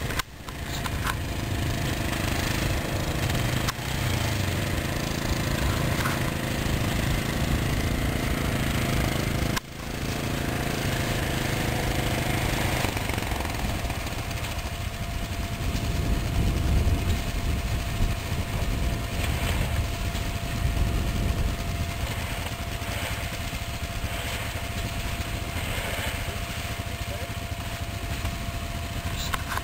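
ATV engines running: a steady engine note for about the first thirteen seconds, broken by two brief dropouts, then a rougher, noisier low rumble.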